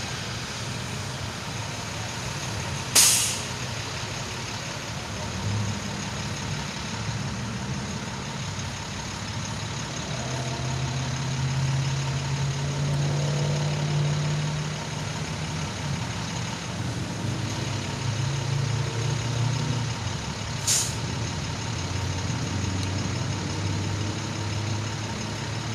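Heavy vehicles idling in street traffic. An engine drone grows louder for a few seconds in the middle, and two short, sharp air-brake hisses come about three seconds in and again about twenty seconds in.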